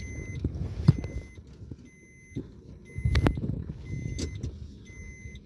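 A Maruti Suzuki Baleno's warning chime beeps about once a second over the low rumble of the car rolling across rough ground. A sharp knock comes about a second in, and a louder thump about three seconds in.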